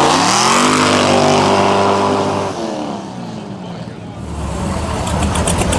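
V8 muscle car engine revved hard, rising quickly, held high for about two seconds, then dropping off. After a brief lull it settles into a low rumble near the end.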